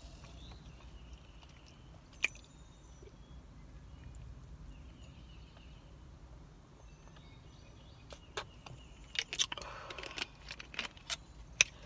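Drinking from a plastic soda bottle over a low steady hum, with a sharp click about two seconds in; in the last few seconds a run of sharp clicks and crackles as the plastic bottle is handled and lowered.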